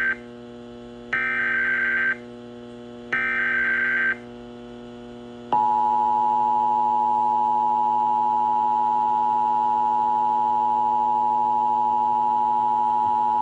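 Emergency Alert System tones: the end of one buzzy SAME header data burst, then two more bursts of about a second each, spaced about a second apart. After a short pause the steady two-tone EAS attention signal (853 and 960 Hz together) sounds for about eight seconds. A steady low hum runs underneath throughout.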